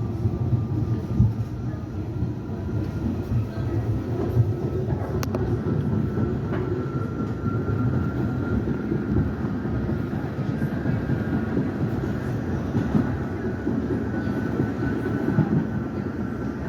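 R68A subway car running between stations, heard from inside the car: a continuous rumble of wheels on track with a faint, steady, high-pitched howl from the traction motors.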